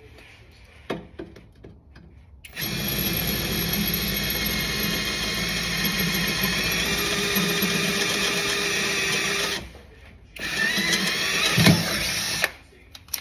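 Cordless drill running steadily as it bores a mounting hole for a nut rivet in the car's underside. It runs for about seven seconds, stops briefly, then runs again for about two seconds, with a knock near the end of the second run.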